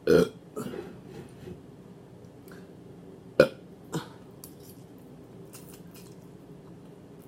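A short burp right at the start, with a smaller one just after, then quiet eating noises with a sharp knock about three and a half seconds in and another half a second later.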